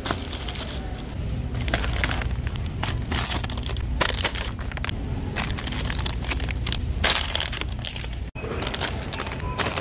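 Plastic candy wrappers and bags crinkling as a hand rummages through them, irregular sharp crackles over a steady low rumble.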